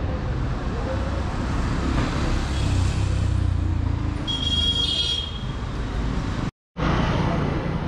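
Street traffic: vehicle engines running with a steady low rumble, and a vehicle horn sounding once for about a second midway. The sound cuts out completely for a moment near the end.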